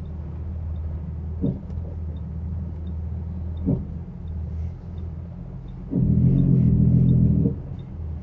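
Semi-truck diesel engine and road noise heard from inside the cab while driving: a steady low rumble, with two short knocks and a louder, fuller engine sound lasting about a second and a half from around six seconds in.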